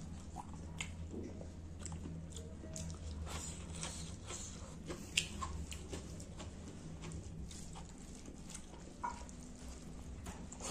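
Close-up eating sounds: a mouthful of rice and pangas fish curry being chewed, with many short wet clicks and smacks, and fingers squishing and mixing rice on the plate. The sharpest click comes about five seconds in, over a low steady hum.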